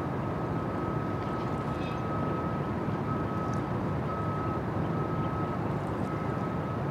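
Steady low rumble of a large cruise ship's engines and machinery heard across the water, with a thin, steady high whine over it and a few faint clicks.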